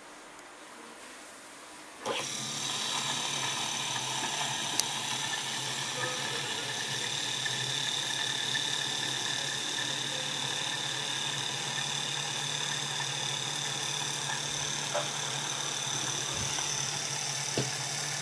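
Philips Jet Clean system running a cleaning cycle with the SensoTouch 3D shaver docked in it: a steady motor hum with a high whine that starts abruptly about two seconds in, with a few faint clicks.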